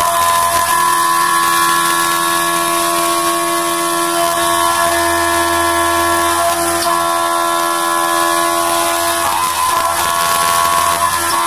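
CNC milling machine cutting aluminium under flood coolant: a steady, high-pitched multi-tone whine from the spindle and cutter over a coolant hiss, the tones shifting a few times as the cut changes.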